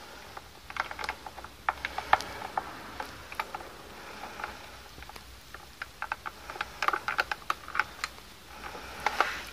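Irregular small plastic clicks and rattles of a handheld XTOOL PS701 scan tool and its blue diagnostic cable connector being handled and fitted together, in two clusters: about a second in, and again from about six seconds in.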